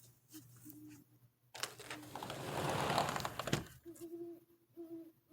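An unidentified animal calling in short, low, steady-pitched notes, three in quick succession near the end, with a fainter note near the start. A louder rush of noise passes through the middle.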